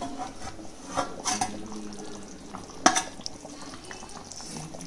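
Aluminium plate used as a lid clinking against a cooking pan as it is handled and lifted off, with a few sharp clinks about a second in and a louder one near three seconds.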